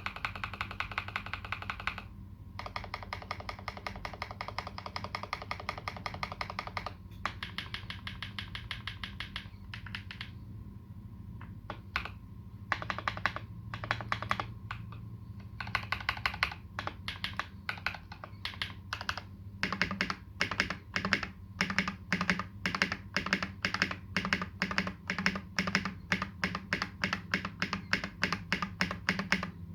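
Custom KBD75v2 mechanical keyboard with lubed Holy Panda tactile switches and GMK Dolch keycaps being typed on. Fast runs of keystrokes come first, then a patch of scattered single presses with pauses, then steady, evenly spaced presses through the last third.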